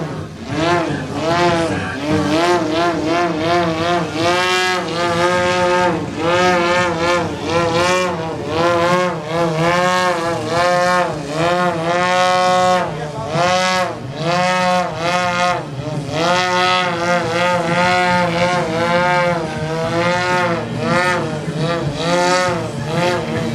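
Giant-scale RC airplane's engine and propeller in a hover, the throttle worked up and down over and over so the pitch swells and falls about once a second.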